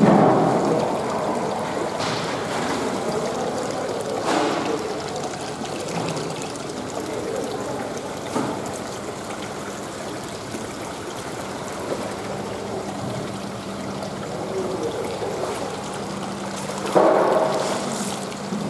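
Water running and bubbling in aerated live-fish holding tanks, with louder splashing surges at the start, about four seconds in, and near the end. A faint steady hum sits underneath through the middle.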